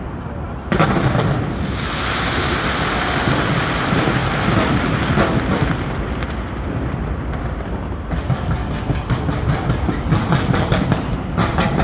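Fireworks going off: a sharp bang about a second in, then a dense hissing crackle, and rapid crackling pops building near the end.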